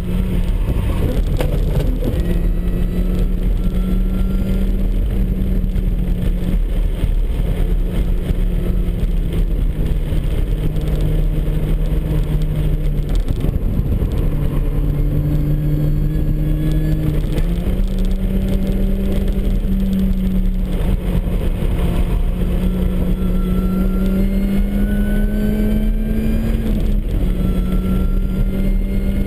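Supercharged MINI Cooper S four-cylinder engine driven hard on track, its pitch climbing through the revs and stepping back down several times as gears change, over steady road and wind noise.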